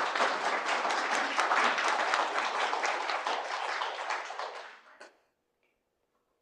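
Congregation applauding after a talk, many hands clapping at once. The applause dies away about five seconds in.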